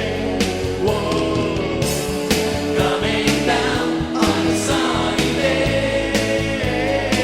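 A rock band song with sung vocals held over a steady drum beat.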